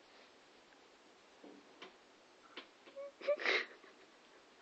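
A domestic cat hissing in a few short breathy bursts, the loudest about three and a half seconds in: an annoyed cat's warning.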